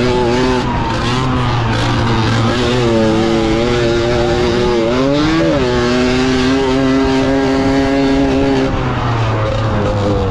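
Tuned Balkan 50 two-stroke moped engine running hard at high revs. Its pitch holds steady, dips and climbs back up about five seconds in, then dips again near the end before rising.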